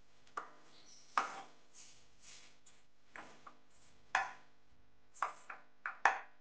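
Silicone spatula stirring and tossing dry toasted grated coconut in a stone-coated nonstick frying pan: short, irregular scrapes and taps against the pan, about nine in all, over a faint steady hum.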